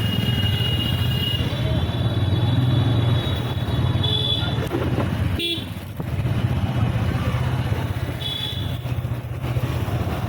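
Single-cylinder engine of a TVS Apache RTR motorcycle running while riding in city traffic, with vehicle horns honking several times: at the start, about four seconds in, and again about eight seconds in.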